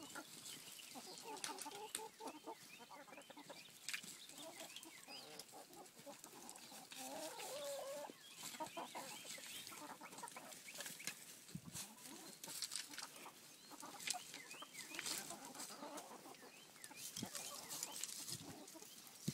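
A flock of hens clucking and squawking, with many short overlapping calls and scattered short, sharp clicks.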